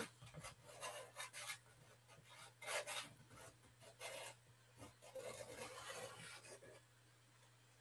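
Faint scratching and rubbing of a pastel stick across paper, a handful of short strokes. The strokes come in small groups and stop about two thirds of the way through.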